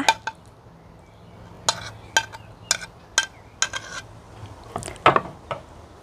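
Ceramic plates clinking as an upturned plate used as a cover is lifted off a plate of food: a series of sharp, ringing clinks about half a second apart, then a louder clatter about five seconds in.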